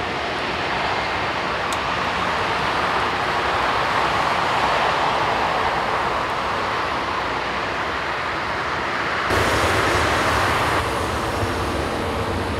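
Airbus A380's four Rolls-Royce Trent 970 turbofans running at taxi power, a steady jet whoosh as the airliner turns onto the runway. About nine seconds in, a sudden louder, deeper rumble lasts a second or two.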